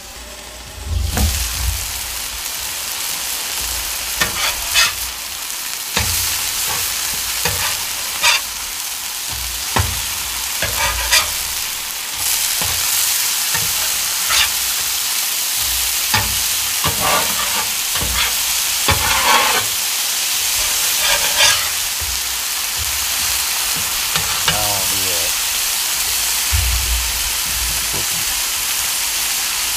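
Smash burger patties, potato wedges and onions sizzling on a hot flat-top steel griddle. The frying hiss starts about a second in and grows louder about twelve seconds in, with scattered short scrapes and clicks of metal utensils on the griddle surface.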